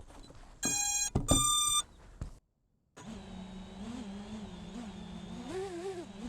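Two electronic beeps, the second longer, then after a short silence a racing quadcopter's motors start up and run with a steady hum whose pitch wavers as the throttle changes.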